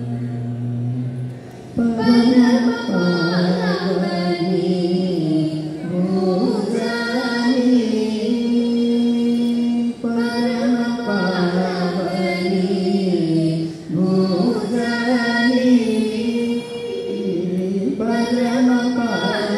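A small group of singers, women's voices to the fore, singing a Telugu devotional kirtana together, in sung phrases of a few seconds with short breaks between them.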